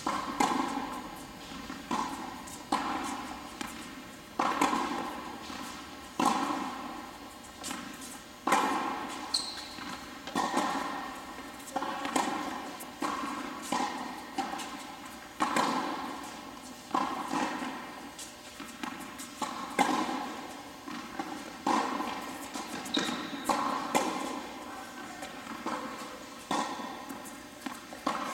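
Tennis ball struck by racquets and bouncing on an indoor hard court during a long rally: sharp hits every second or two, each ringing on in the echoing hall. Short high squeaks, likely shoes on the court, come about nine seconds in and again later on.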